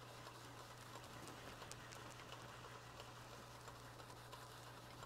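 Near silence: only a faint steady low hum from the running wood lathe, with a faint hiss.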